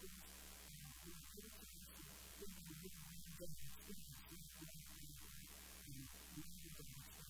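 Faint steady electrical mains hum, with a low muffled murmur rising and falling over it.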